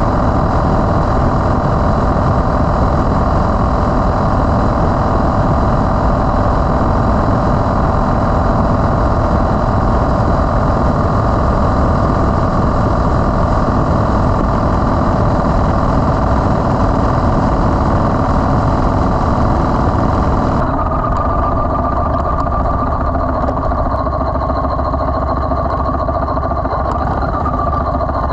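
Yamaha Road Star XV1600's air-cooled V-twin engine running steadily. About two-thirds of the way through the sound changes abruptly and turns duller, losing its highest part.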